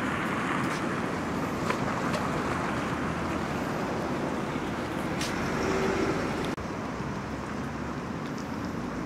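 Steady city street traffic noise, cars running along the road. The noise changes abruptly about two-thirds of the way through.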